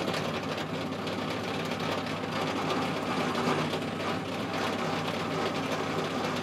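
Pillar drill running steadily, its 5.5 mm twist drill cutting into a steel block.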